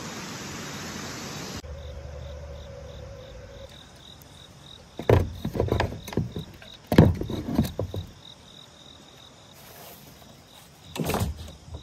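Insects chirping in a steady high pulse, about four pulses a second, with a few clusters of knocks and thumps from gear being handled on a plastic kayak.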